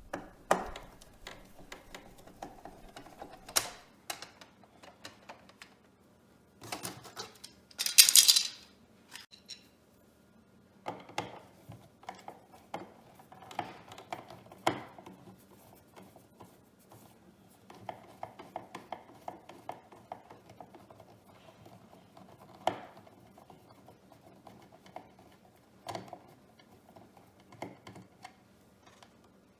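Irregular clicks and clinks of small hard parts being handled and rummaged through while searching for spacers, with a louder scraping rustle about eight seconds in.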